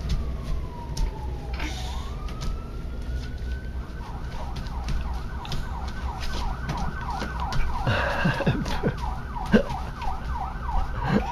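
A siren wailing, gliding slowly down and back up, then switching to a fast yelp that warbles several times a second. A few knocks sound over it near the end.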